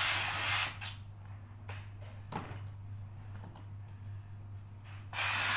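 Steam cleaner hissing as its brush nozzle is worked over a carpet. The steam cuts off about a second in, a few light clicks and knocks follow as the nozzle is handled, and the hiss starts again near the end.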